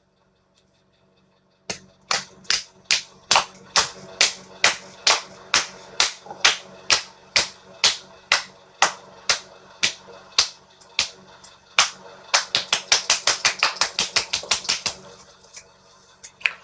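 A regular run of sharp smacks, about three a second, quickening to about five a second for the last few seconds before stopping. It starts after a moment of dead silence.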